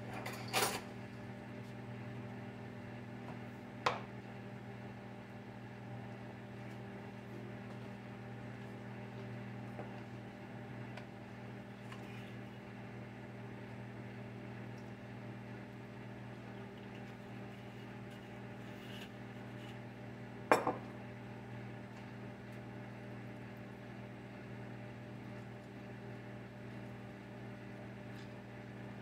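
A few sharp clinks of dishes and utensils on a kitchen counter: one just after the start, one about four seconds in and a louder double clink about twenty seconds in, over a steady low hum.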